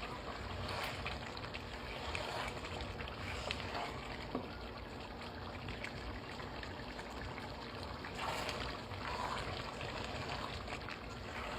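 Pot of pilau rice bubbling and simmering as it cooks, a steady watery sound with a few small clicks.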